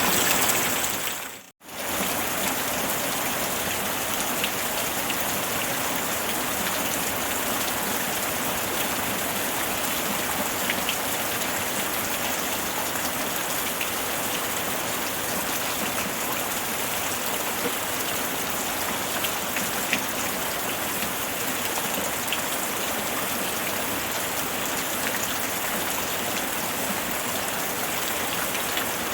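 Steady rainfall: an even hiss with scattered drop ticks. It cuts out for a moment about a second and a half in, then comes back and runs on evenly.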